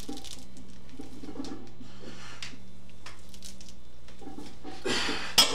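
A steady low hum with faint rustles while a heavy bench press bar is pressed, then near the end a short rush of noise and a sharp metal clank as the loaded barbell is racked.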